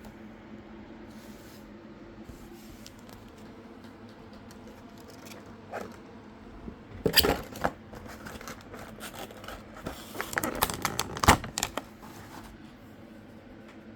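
Packaging being handled and opened: a run of sharp clicks, scrapes and crinkles, loudest about 7 and 11 seconds in, over a faint steady hum.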